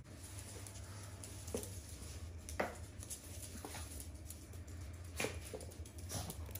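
Small dogs' claws pattering and skittering on a laminate floor as they play, with a few short, sharp taps and knocks scattered through.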